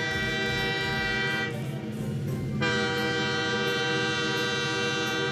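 Cartoon toy-train sound effect: a held, many-toned train horn, its higher tones dropping away for about a second midway before returning, over faint regular clicking.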